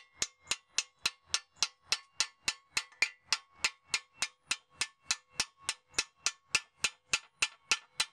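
Steady, rapid light hammer taps, about three and a half a second, with a faint metallic ring, driving a freezer-chilled lower ball joint into a torch-heated steering knuckle on a 1995 Honda Accord. The ball joint is a press fit, seated here by shrink fit.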